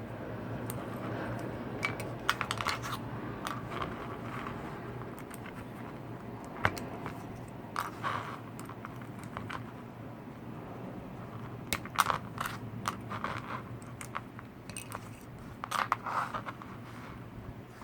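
Scattered small clicks, taps and rattles of tools and tiny plastic and metal parts being handled while a brushed micro quadcopter is taken apart, over a faint low steady hum.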